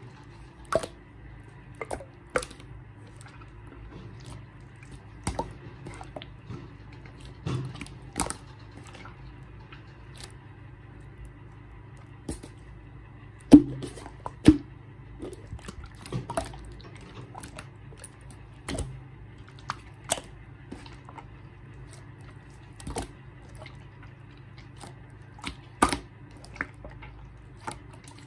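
Clear slime being squished and worked by hand, giving sticky, wet pops and clicks at irregular intervals. Two of the pops, just past the middle, are louder than the rest. A steady low hum sits underneath.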